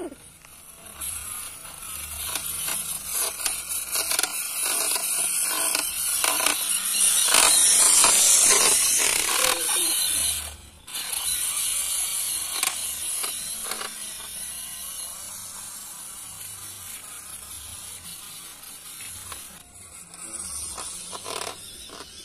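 Small electric motor and gearbox of a remote-control toy pickup truck whirring as it drives over gravel and dirt, with scattered clicks from the wheels on the grit. The whir is loudest a few seconds before the middle and cuts out briefly just after the middle.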